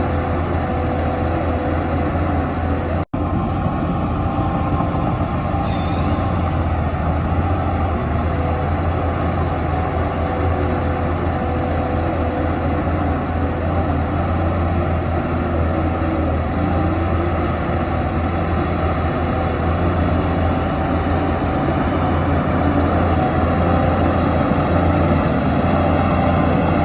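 Heavy diesel earthmoving machinery running steadily under load, with a strong low engine hum. A short burst of air hiss comes about six seconds in, and the sound breaks off for an instant about three seconds in.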